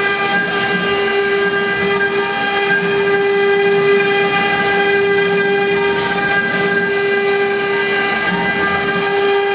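CNC router spindle whining steadily at high speed as its engraving bit carves a relief into a wooden board. One strong held tone with several fainter higher tones above it.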